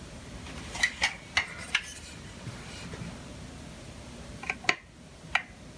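Caulking gun clicking as it is handled and its trigger worked to push caulk into a crack: a quick run of four sharp clicks about a second in, then three more near the end, over a low steady room hum.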